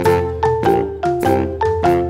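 Background music: a bright mallet-percussion melody of quick struck notes, about four a second, over a steady low bass.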